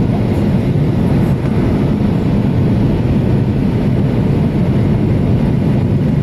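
Steady cabin roar of a jet airliner on final approach, its engine and airflow noise heard from a seat beside the wing.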